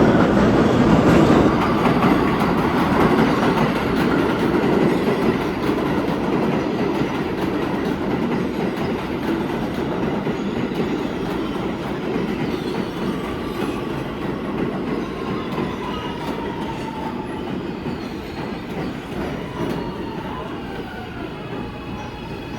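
Queens-bound E subway train pulling out of the station, its running rumble fading steadily as it moves away, with faint wheel squeal about halfway through.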